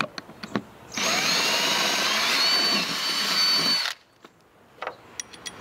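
Cordless drill running in one continuous stretch of about three seconds, its motor whine rising slightly in pitch, against the wall of a travel trailer. A few light clicks come just before it starts.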